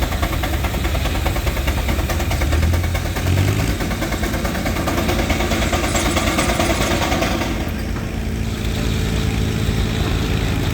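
Frick 8 1/2 x 10 steam traction engine running a belt-driven sawmill. The sawing machinery keeps up a loud, continuous mechanical din. About three and a half seconds in, a deep rumble gives way to a steady hum with overtones, and a high hiss drops away about eight seconds in.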